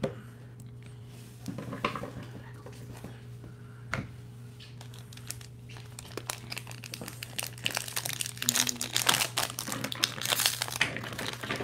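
Plastic wrapper of a Topps baseball card pack crinkling and tearing as it is opened by hand. There is a single sharp tap about four seconds in, and the crackling grows dense and loudest in the second half.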